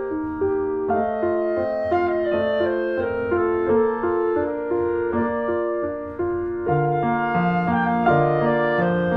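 Background instrumental music, a gentle melody moving note by note, with lower notes joining in about two-thirds of the way through.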